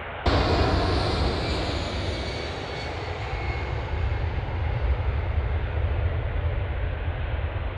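Boeing 787-10 jet engines at take-off power during the take-off roll: a steady jet rumble with a high whine over it, starting abruptly about a quarter second in.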